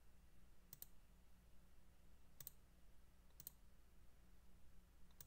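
Faint computer mouse clicks, four of them at irregular gaps, over a faint low electrical hum.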